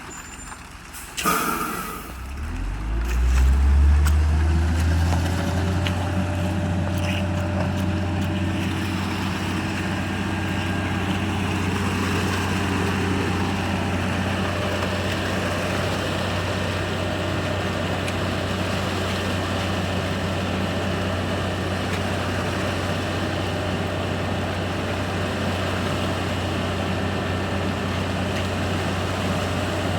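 Diesel engine of a Hino mixer truck starting up about two seconds in, rising in speed, then settling into a steady idle. A short burst of noise comes just before it starts.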